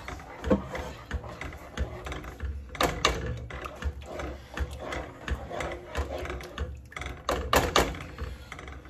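A plastic whisk scraping and tapping against a saucepan while stirring a thick sauce, with irregular clicks and several sharper knocks, the loudest about three and seven and a half seconds in, over a low steady hum.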